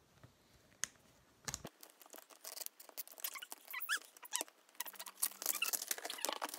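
Toy packaging being handled: scattered clicks, rustles and crackles, with a few short squeaks a little past the middle.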